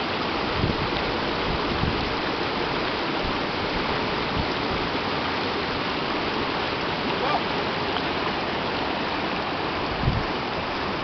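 Steady rushing of river water over rocks, with a few brief low thumps from handling of the microphone.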